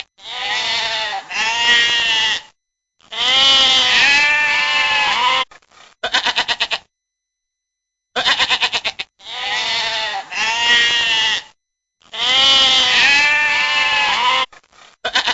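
Sheep bleating: a run of long, wavering bleats and shorter stuttering ones with silent gaps between them. The same sequence plays twice, about eight seconds apart, as in a looped sound effect.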